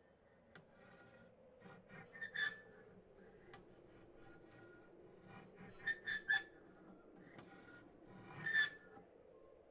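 Battlefield ambience: a steady low wind-like drone with scattered short metallic creaks, squeaks and clinks, the loudest about two and a half, six and eight and a half seconds in.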